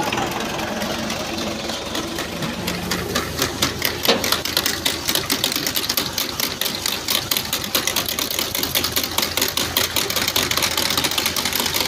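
Tractor-drawn maize planter at work: rapid, even clicking and clattering from its seed-metering units and drive over the steady running of the tractor's engine. The clicking grows more marked after the first few seconds.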